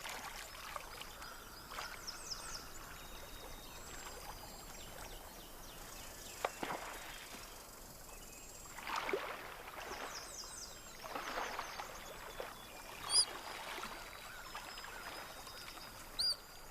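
Outdoor nature ambience: a steady wash of noise like running water, with a few swelling rushes and a few short high chirps near the end.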